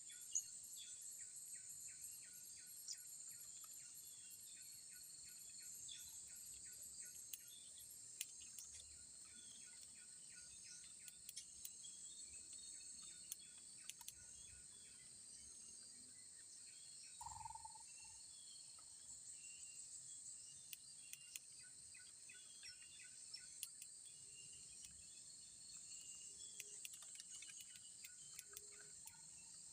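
Faint outdoor ambience of a steady high-pitched insect drone from crickets or cicadas, with scattered short sharp bird chirps and one lower call about seventeen seconds in.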